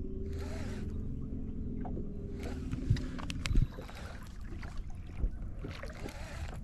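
A boat's motor humming steadily, its pitch slowly falling, then dropping away about three and a half seconds in. Two dull knocks come around three seconds in, with a few small clicks.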